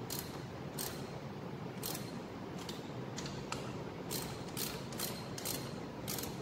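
Small hand ratchet wrench clicking in short back-and-forth strokes, about two a second, as a bolt is tightened.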